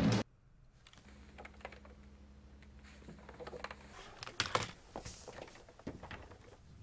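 Typing on a laptop keyboard: irregular key clicks, sparse at first and busier past the middle, over a faint low hum that stops about four seconds in.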